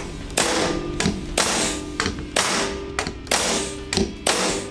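SENCO NS20XP pneumatic stapler firing staples into OSB board, about five shots roughly a second apart, each a sharp bang followed by a short hiss of exhaust air.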